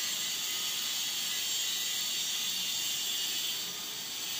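Steady, even hiss with most of its energy high up, unchanging throughout: background noise of the recording or room, with no distinct eating sounds standing out.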